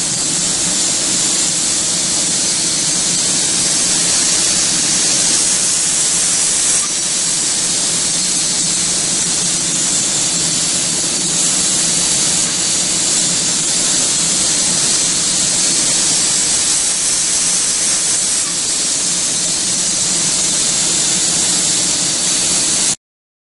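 Steady hiss of a painting robot's compressed-air spray gun coating plastic car bumpers, over a low hum from the paint booth's ventilation. It starts and cuts off abruptly.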